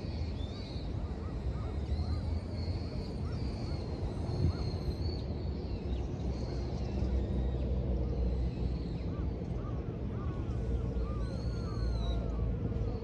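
City park ambience: a steady low rumble of distant city traffic under birds calling, short repeated calls that come thickest near the end, with a couple of high, sharp calls about four and eleven seconds in.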